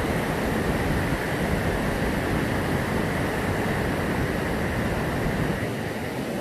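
Steady rush of a glacial river waterfall, white water pouring over rock, an even noise with a strong low rumble.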